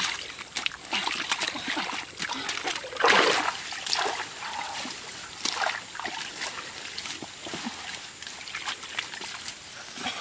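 Hands and a wooden stick scooping and splashing in shallow muddy water and wet mud, with irregular splashes, slops and drips; the loudest splash comes about three seconds in.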